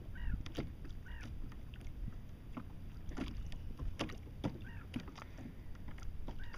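Wind on the microphone and water lapping at a kayak, with scattered knocks and clicks and a few short high squeaks.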